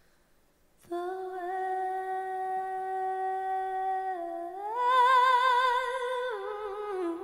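Solo female voice singing unaccompanied into a microphone: after a short hush, a long held note begins about a second in, swells up to a higher note with vibrato around the middle, then steps back down near the end.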